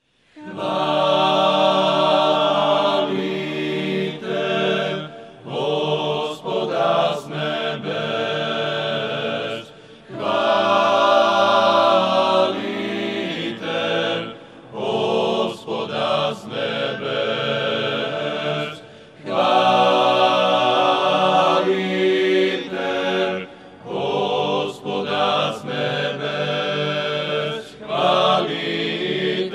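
A choir singing a slow chant, in long phrases of several seconds with short breaks between them.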